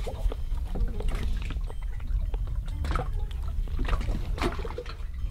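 Lake water lapping and splashing irregularly against a small floating raft, over a steady low rumble.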